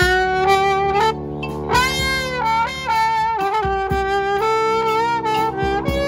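Brass band playing, a trombone out front holding long notes over sustained horns, the pitch stepping to new notes a few times.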